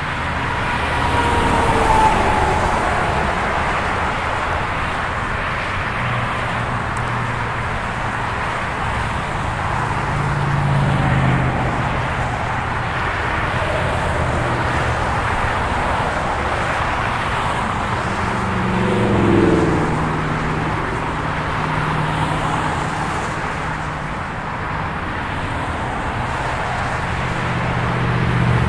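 Steady freeway traffic on Highway 15: a continuous rush of tyre and engine noise from cars and trucks streaming past. Single vehicles swell louder as they pass, with falling engine tones about two-thirds of the way through and again near the end.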